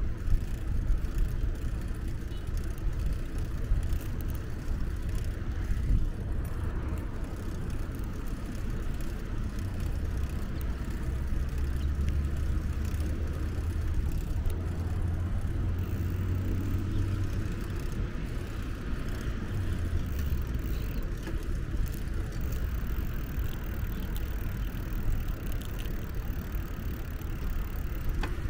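Steady riding noise from a bicycle on a paved path: tyre hum and a low rumble, which grows stronger for several seconds in the middle.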